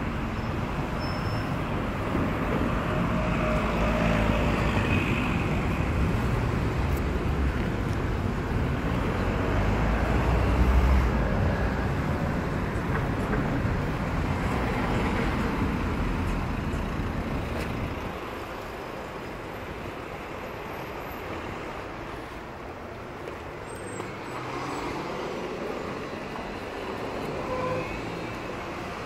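Road traffic on a busy city street: a steady mix of passing and idling car engines, louder for the first part and dropping off about eighteen seconds in.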